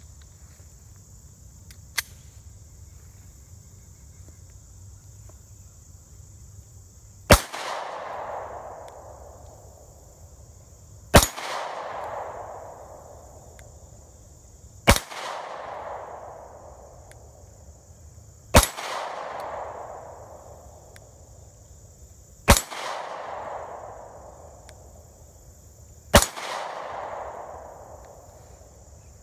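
Six shots from a Beretta Nano 9mm pistol, fired slowly about four seconds apart, each followed by an echo that dies away over about two seconds. Crickets chirr steadily throughout, and a single sharp click comes about two seconds in.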